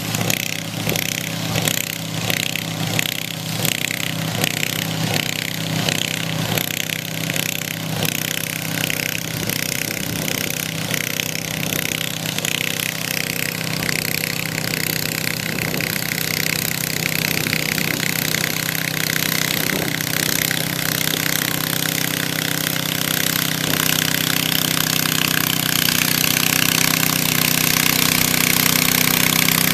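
Garden pulling tractor's engine running hard: a steady engine note with an uneven pulsing through the first several seconds, growing louder over the last third.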